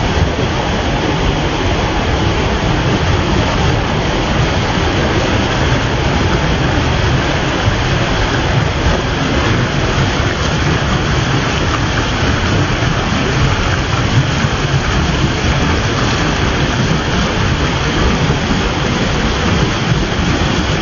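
Waterfall pouring: a loud, steady rush of falling water with a deep rumble underneath.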